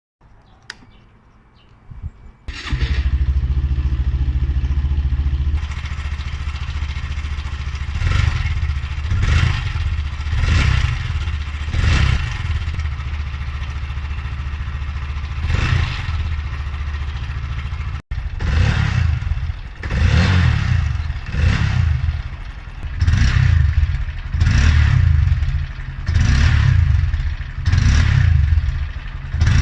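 Stock exhaust of a 2017 Honda Grom MSX125's air-cooled 125 cc single-cylinder engine. After a few clicks it starts about two and a half seconds in, idles steadily, then is revved in repeated short throttle blips that come more often in the second half.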